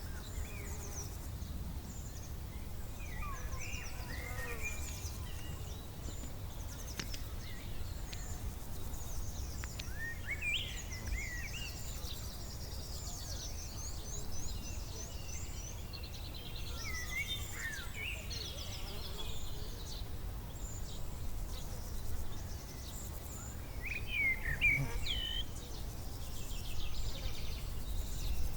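Summer field and forest ambience: several birds chirping, trilling and whistling on and off over a low steady rumble.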